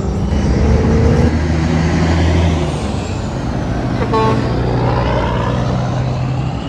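Semi truck going by with a steady low drone, loudest for the first three seconds, then settling lower.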